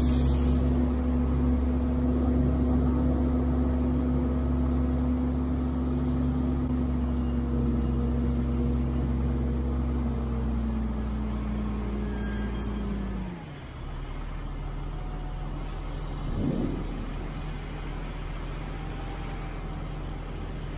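Large farm diesel engine running steadily under throttle; about thirteen seconds in its pitch sags and it drops to a quieter, lower running. A brief clunk follows a few seconds later.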